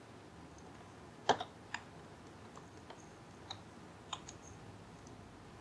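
A few scattered, sharp clicks from a computer mouse and keyboard over faint microphone hiss, the loudest a little over a second in.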